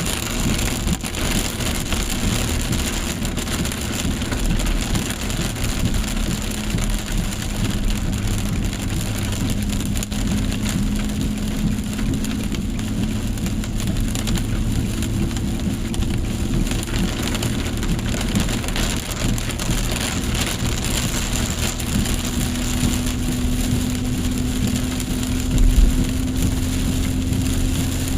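Heavy rain pattering steadily while a car's engine runs, its low hum shifting pitch a little about three quarters of the way through. A brief low thump comes near the end.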